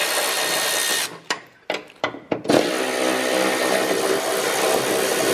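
Power tool running at full speed with a steady whine. It stops about a second in, gives a few short blips, then runs steadily again.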